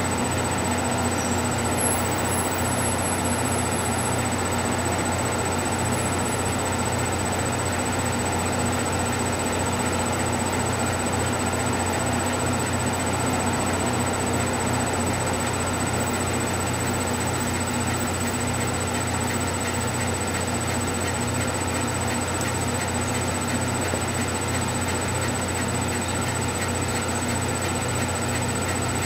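Steady low hum and hiss, with a faint high-pitched whine.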